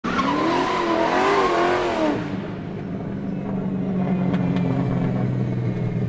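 A car: loud engine noise wavering up and down in pitch for about two seconds, then dropping to a steady low running hum.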